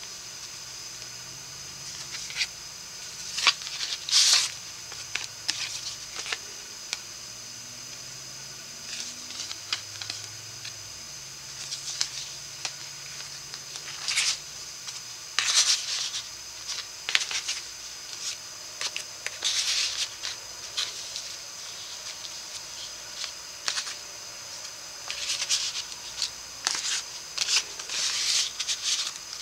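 Cardstock and patterned paper rustling and scraping in short, irregular bursts as tags and cards are slid in and out of the pockets of a handmade paper folio.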